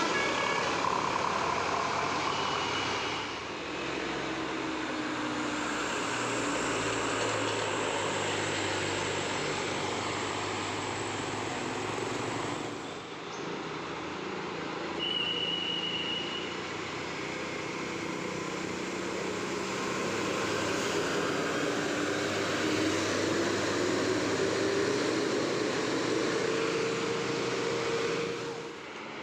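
Passing road traffic: vehicle engines running with tyre and road noise, one engine rising in pitch as it speeds up near the end. A brief high steady tone sounds twice, about three seconds in and again about halfway.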